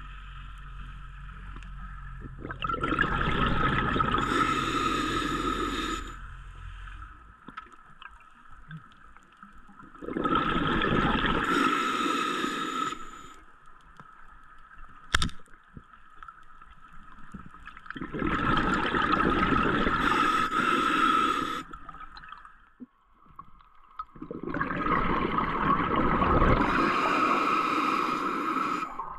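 Scuba diver breathing underwater through a regulator, with a rush of exhaled bubbles about every eight seconds, four times, and quieter pauses between. A single sharp click sounds about halfway through.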